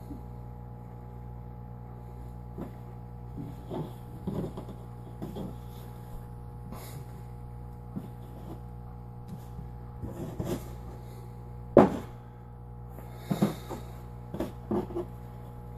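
Hands working thin sheets of rolled dough on a table: scattered soft pats, rustles and light taps, with one sharp knock about three-quarters of the way through. A steady hum runs underneath.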